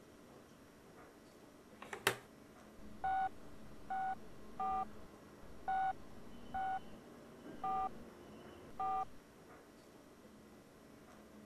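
iPhone keypad tones as a phone number is dialled: seven short two-tone beeps at an uneven, hand-tapped pace. A single sharp click comes shortly before the first beep.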